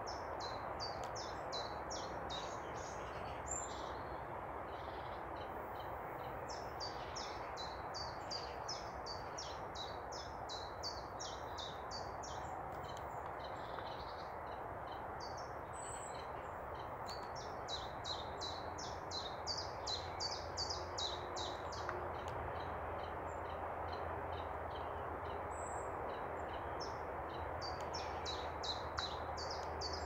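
A small songbird singing a fast, high song of rapid repeated notes, each phrase a few seconds long and repeated several times, over a steady background hiss.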